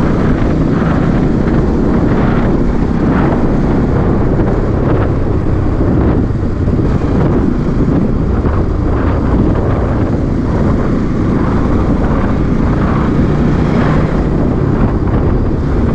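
Bajaj Pulsar NS200's single-cylinder engine running steadily while riding at road speed, mixed with heavy wind noise on the microphone.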